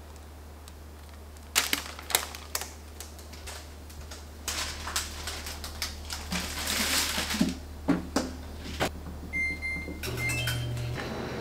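Clatter and knocks of a pizza tray being slid into a countertop air fryer oven and the door shut, then the oven's control panel beeping as it is set, and a steady hum as it switches on near the end.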